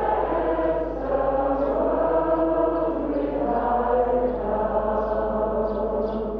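Soundtrack music: a choir singing a slow chant in long held notes.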